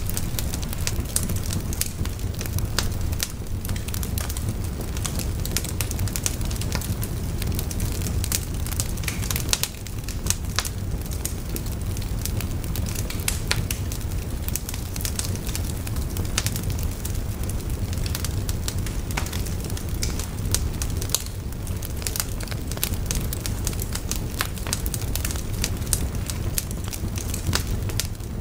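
Wood fire burning, with frequent irregular crackles and pops from the burning sticks over a steady low rumble.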